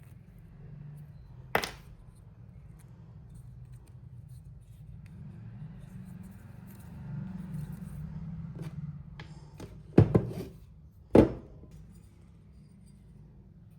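Hard clicks and knocks of tools or small parts being handled: one sharp click early, then a quick double knock and another knock about a second later, over a low steady hum.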